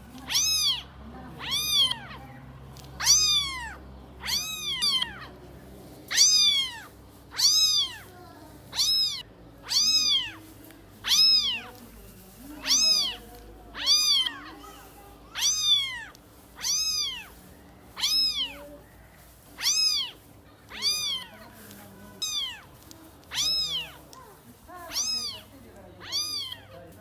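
A cat meowing over and over, about one meow a second, each meow rising and then falling in pitch, all much alike.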